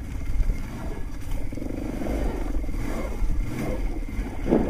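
ATV engine running at low throttle as the quad crawls over a rough trail, with a short louder burst near the end.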